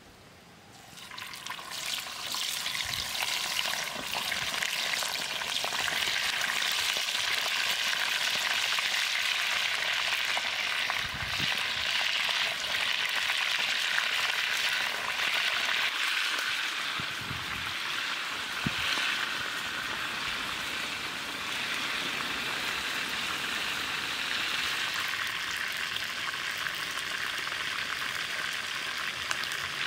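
Chicken thighs deep-frying in hot oil in a wok, a steady loud sizzle that swells up over the first few seconds, as when the pieces go into the oil. A few low thumps are heard partway through.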